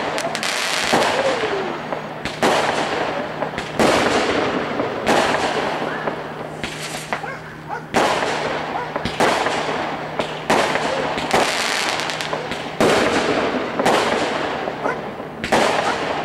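Aerial fireworks bursting in a steady run, about a dozen sharp bangs roughly one every second or so, each trailing off in a rolling echo.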